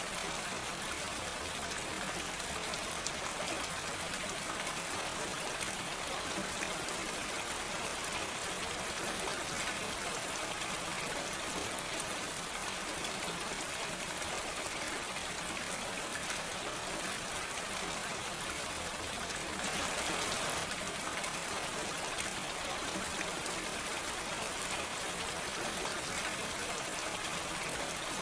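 Steady gentle rain falling, an even hiss of many drops with no thunder, swelling slightly louder about twenty seconds in.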